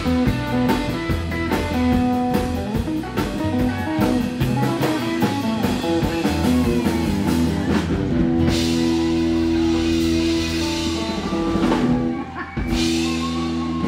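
Live rockabilly band playing: electric and acoustic guitars, upright double bass and drum kit at a quick, even beat. About eight seconds in it moves into long held chords under crashing cymbals, and strikes a last crash and held chord near the end to close the song.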